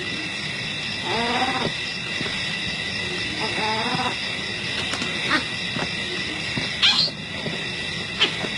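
Two short, wavering animal calls about a second apart, over a steady high insect chorus. A few sharp chirps come later.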